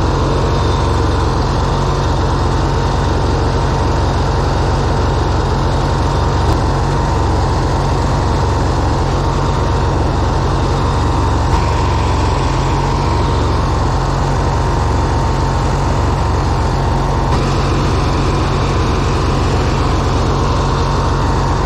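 Riding lawn mower's small engine running steadily as the mower is driven, with a steady whine through it.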